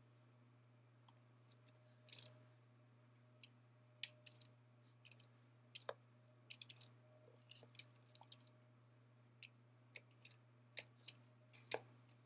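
LEGO Technic 42005 Monster Truck handled and rolled by hand on a hardwood floor: faint, irregular plastic clicks and ticks from its parts and wheels, over a low steady hum.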